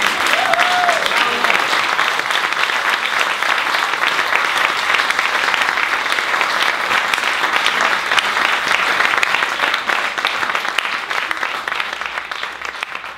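Audience applauding: dense, steady hand-clapping that begins to fade near the end.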